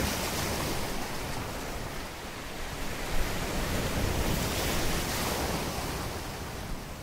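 Ocean surf washing onto a shore, a steady rush of breaking waves that swells about halfway through and eases near the end.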